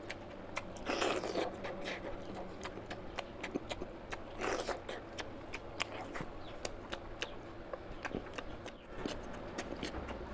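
Close-up eating of oily mutton fat curry and rice by hand: wet chewing with many sharp lip-smacking clicks, and a few louder mouthfuls about a second in, about halfway through, and near the end.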